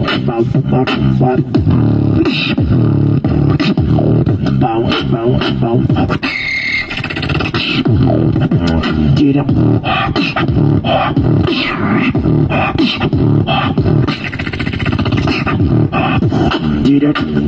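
Live freestyle beatboxing into a handheld microphone, amplified through a small street amp: a fast, dense beat of mouth-made hits over a deep bass line. Around six seconds the bass drops out briefly and a higher held sound comes in before the full beat returns.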